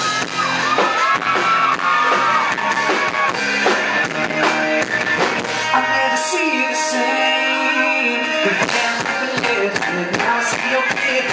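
A rock band playing live with drum kit, guitar and singing. About six seconds in, the drums and bass drop out for a couple of seconds, leaving held chords, and then the full band comes back in.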